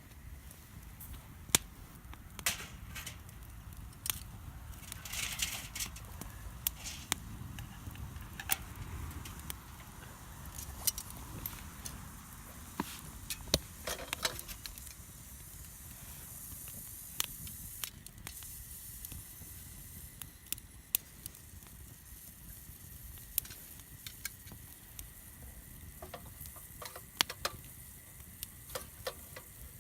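Wood campfire crackling, with irregular sharp pops and snaps over a soft sizzling hiss.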